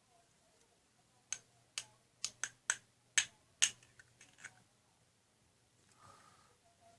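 Plastic Play-Doh playset pieces clicking and tapping: about ten sharp, irregular clicks over roughly three seconds, then a faint brief sound near the end.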